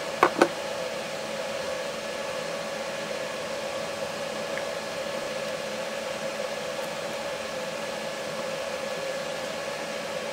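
Steady background hiss with a faint hum, and two light clicks just after the start as hands handle the opened laptop's parts.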